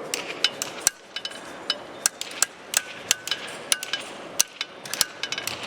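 Several farriers' hammers striking steel horseshoes on anvils at once: irregular, overlapping clangs, several a second, each with a short metallic ring.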